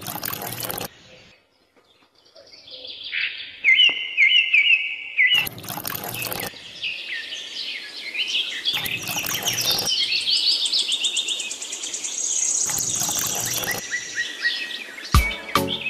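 Songbirds chirping and singing in quick, repeated phrases, with a few short bursts of noise between them.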